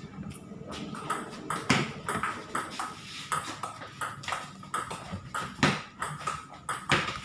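Table tennis rally: the ball clicks sharply off the paddles and bounces on the table in a quick back-and-forth, about two to three hits a second, each with a short ringing ping.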